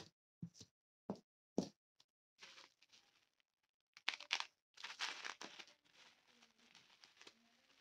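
Plastic bubble wrap crinkling and tearing as it is cut open with a craft knife and pulled off a small boxed item. Four short knocks come in the first two seconds, and the crinkling is loudest about four to five seconds in.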